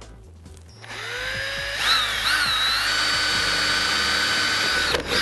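Cordless drill boring a mounting hole through a motorcycle race fairing. The motor whine starts about a second in and rises in pitch, wavers briefly as the bit bites, then holds steady until it stops near the end.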